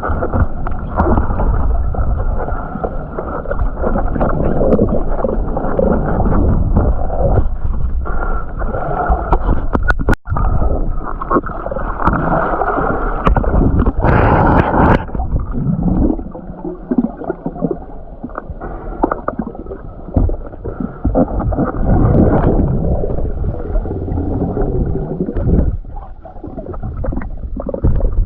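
Muffled churning and gurgling of water at a waterfall, loud and uneven, with surges and lulls and almost no high sound.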